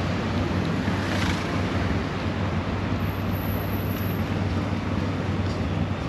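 Tuk-tuk (auto rickshaw) engine running steadily as it drives, heard from inside the open cab with wind and road noise.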